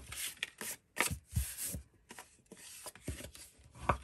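Paper being folded and burnished with a bone folder: a series of separate scraping swipes and rustles of paper handled against the table.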